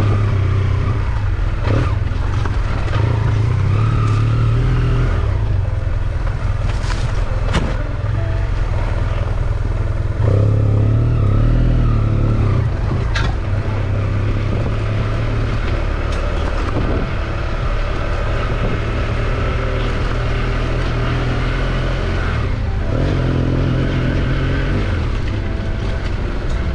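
A vehicle engine running steadily, a little louder from about ten seconds in.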